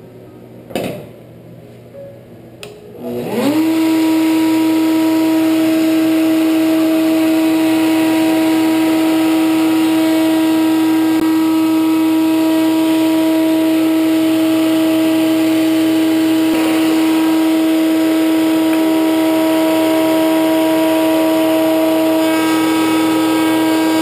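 Table-mounted router switched on about three seconds in, spinning up with a rising whine and then running at a steady high whine while a 45-degree chamfer bit cuts a bevel along poplar strips.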